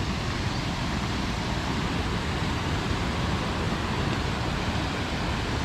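Steady rush of a river flowing over stones, an even hiss without break.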